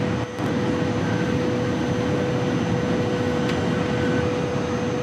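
The V150 record TGV running flat out at about 538 km/h: a steady rushing roar with a steady whine through it. The level dips for a moment just after the start, then holds.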